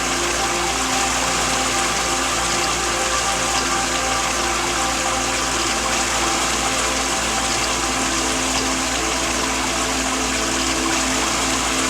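Steady rushing of a waterfall, with soft held notes of a calm melody beneath it.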